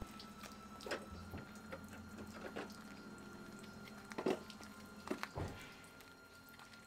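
Water running faintly from a hose into a motorhome's fresh-water tank inlet. A few light knocks and clicks from handling the fittings come about a second in and again past the middle.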